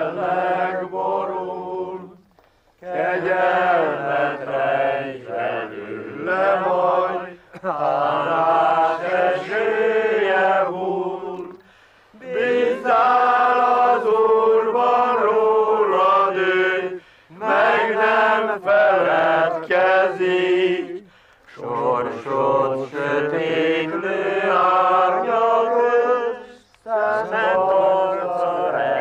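A group of men singing a Hungarian hymn together without accompaniment, in long held phrases with short pauses for breath between them.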